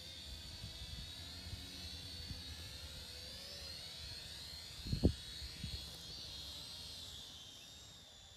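Holy Stone HS110D quadcopter's small electric motors and propellers whining as it comes down to land, the pitch wavering as it manoeuvres, then fading near the end as it settles on the grass. A low rumble runs underneath, with a single thump about five seconds in.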